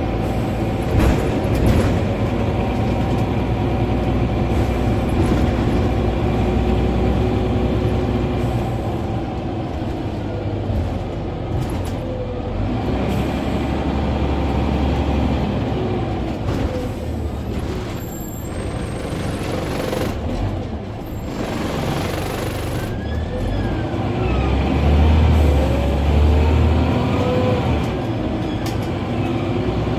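Interior sound of a Scania N94UB OmniCity bus on the move: its diesel engine and drivetrain run continuously, rising and falling in pitch with speed, over road and body noise. There is a short hiss of air about 21 seconds in.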